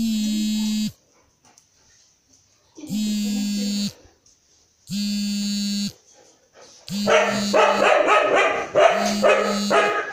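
A dog barking repeatedly and loudly from about seven seconds in. Earlier, a steady flat buzzing tone sounds three times, about a second each and a couple of seconds apart, and keeps recurring under the barking.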